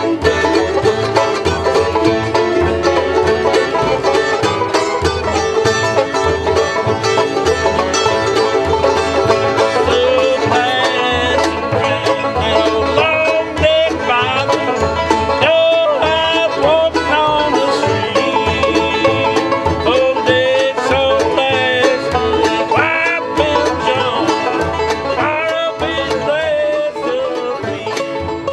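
Acoustic bluegrass jam: a mandolin and a banjo picking a tune together, with a bending melody line riding over the picking from about ten seconds in.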